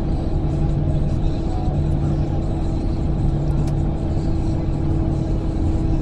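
Steady engine drone and road rumble inside the cabin of a moving bus, with a constant low hum running through it.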